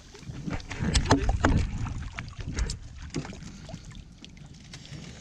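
Water splashing as a hooked fish thrashes at the surface beside a boat and is netted, with scattered sharp knocks. It is loudest about a second in.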